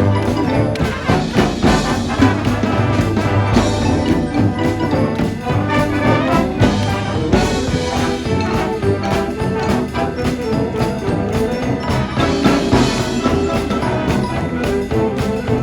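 Marching band playing live: brass (trumpets and trombones) over drums and percussion.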